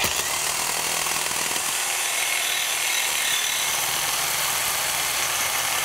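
Reciprocating saw running steadily as its blade cuts through an old steel plumbing pipe.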